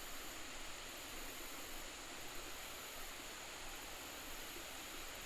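Faint, steady hiss of outdoor background noise with no distinct events.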